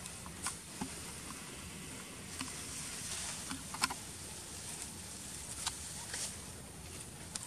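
Macaques feeding on watermelon from a metal bowl: scattered small clicks, taps and rustles, the loudest about four seconds in, over a steady high hiss.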